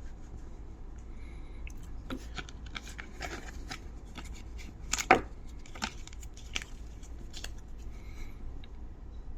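Cardboard phone packaging being handled and opened: scattered taps, scrapes and rustles, with one sharper click about five seconds in.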